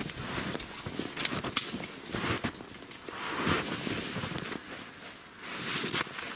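Footsteps crunching in snow, with clothing rustling, in an uneven run of short crackles.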